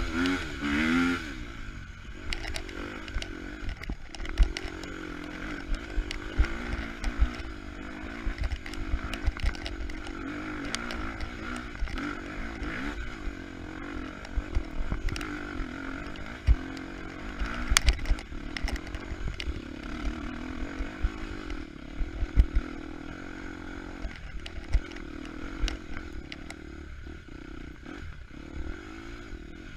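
KTM 250 EXC-F four-stroke single-cylinder dirt bike engine, revving up and down briefly at the start, then running at low, fairly steady revs. Frequent sharp knocks and clatter ride on top of the engine throughout.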